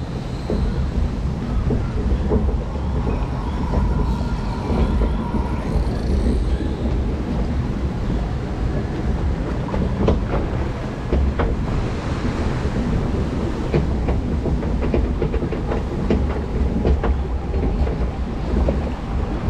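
Log flume boat being carried up the lift conveyor: a steady low rumble and rattle with scattered sharp clicks.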